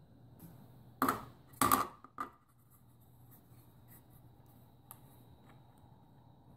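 Three sharp knocks about a second apart early on as a plastic-cased USB tester is picked up off a wooden table, then light handling and rubbing with one small click. A faint steady low hum and a thin high tone sit underneath.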